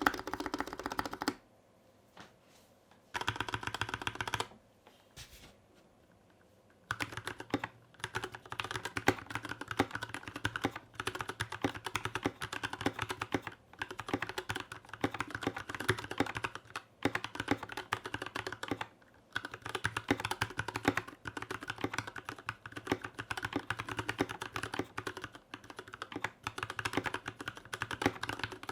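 Typing on a GK64S 60% hotswap keyboard with unlubed stock Gateron Yellow Milky Top switches, an aluminium plate and a plastic case. Two short bursts of keystrokes come first, then continuous typing from about a quarter of the way in. The builder found this unmodded sound a little hollow.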